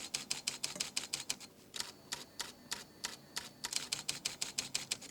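Fujifilm GFX100S medium-format camera's shutter firing in a continuous burst, about five quiet, crisp clicks a second, with a couple of brief pauses in the burst.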